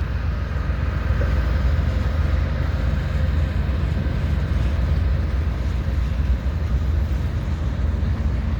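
BNSF manifest freight train's cars rolling past, a steady heavy rumble of wheels on the rails.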